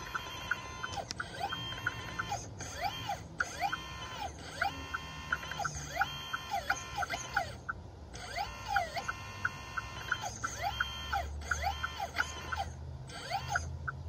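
Hydraulic pump motor of an RC Volvo A40G articulated dump truck whining up, holding and spinning down in repeated short bursts as the hydraulic steering is worked, with a quick even ticking over it. A low hum joins near the end. The steering is struggling to turn, a fault the owner traced to the hydraulic bypass valve setting.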